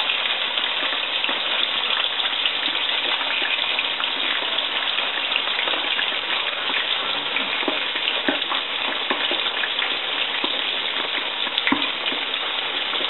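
Floured sole fillet frying in a pan of hot oil: a steady, dense sizzle with small crackles and pops scattered through it.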